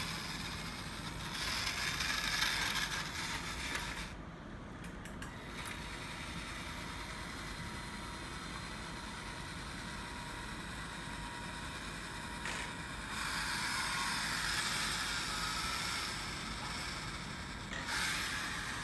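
Motorized scale-model Crusader tank running, its gearbox whirring and its Friulmodel metal tracks clattering. It is louder for a few seconds about a second in and again from about thirteen seconds, quieter in between.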